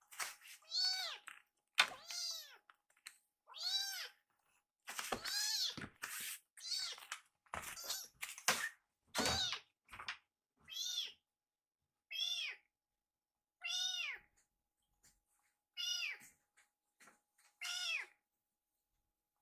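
A young kitten meowing over and over, more than a dozen high, arching calls about a second or two apart, begging for more food after finishing its milk. A few soft knocks come in the middle.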